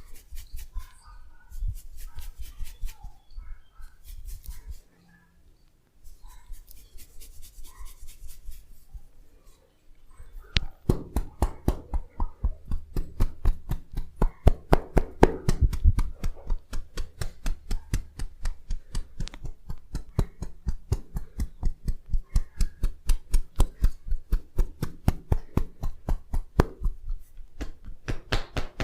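Massage hand strokes: light, irregular taps and rubbing at first, then from about ten seconds in a fast, even run of chopping hand strikes, about four a second, as in an Indian head massage.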